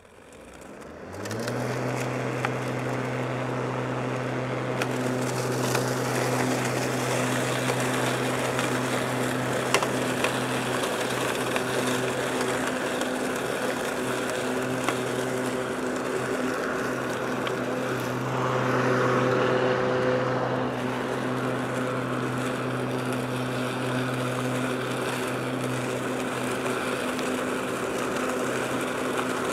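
Cordless 80-volt battery lawn mower with twin blades spinning up about a second in, then running at a steady hum while it mows grass and leaves into its bag. The cutting noise is briefly louder about two-thirds of the way through.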